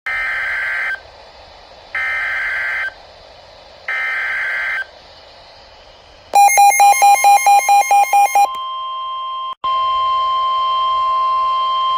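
NOAA Weather Radio Emergency Alert System activation: three one-second bursts of screechy SAME digital header data two seconds apart, then a rapid beeping at about five beeps a second, then the steady 1050 Hz warning alarm tone starting about eight and a half seconds in.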